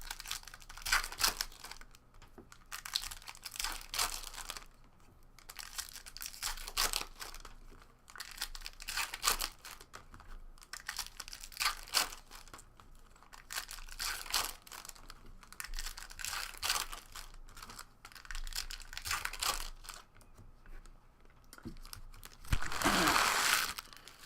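2016 Topps Stadium Club EPL trading cards and their pack wrappers being handled: crinkling and sliding of cards and foil in short rustling bursts every second or two, with a louder rustle near the end.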